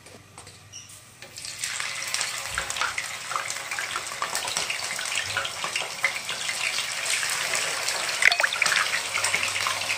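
Whole scad being laid into hot cooking oil in a nonstick frying pan: the oil starts to sizzle and spatter about a second and a half in and keeps crackling steadily, with a louder burst of crackles near the end.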